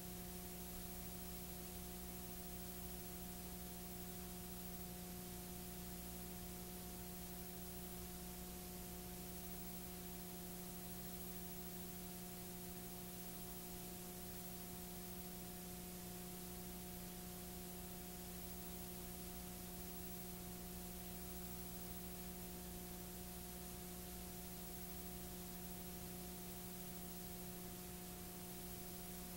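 Steady electrical hum with an even hiss over it, unchanging: the noise floor of a videotape transfer playing a blank stretch with no programme sound.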